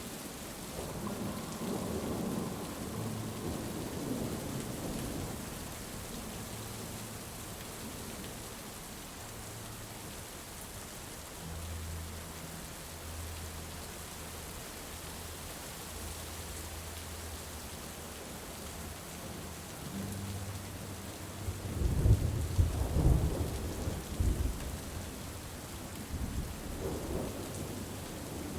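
Steady rain with thunder rumbling: a soft rumble in the first few seconds, then a louder thunderclap with crackling rumble about twenty-two seconds in.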